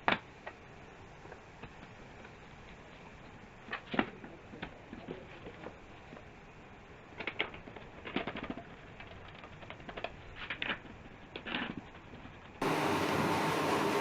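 Scattered sharp clicks and knocks of wood and tools being handled on a workbench, in small clusters. Near the end a steady power-tool motor noise starts abruptly and runs on.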